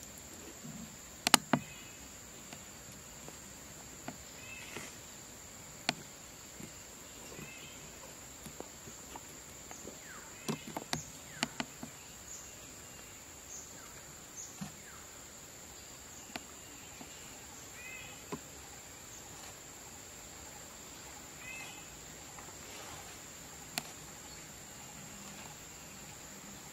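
Steady high-pitched insect drone of the forest, with short chirps now and then and scattered sharp clicks. The loudest click comes about a second in, and a cluster of clicks about ten to twelve seconds in.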